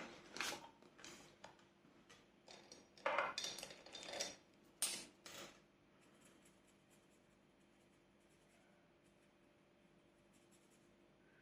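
Rustling and light clatter of paper cash and plastic envelope pockets being handled, in short bursts for the first five seconds or so, then faint scratching sounds.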